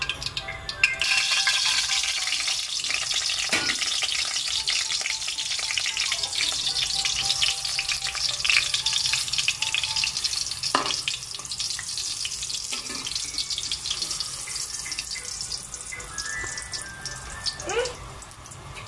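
Halved bananas frying in hot oil in an aluminium wok: a dense crackling sizzle that starts suddenly about a second in as they go into the oil and slowly eases toward the end. A few sharp knocks break through it.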